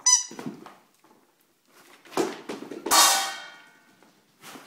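A dog's toy ball striking hard surfaces during play. There is a short ringing clink at the start, a knock about two seconds in, and a loud clang about three seconds in that rings and fades over about a second.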